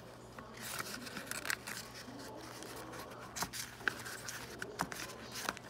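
Paper booklets rustling and sliding against each other as they are handled and leafed through, with scattered light ticks and flaps of paper. A faint steady low hum sits underneath.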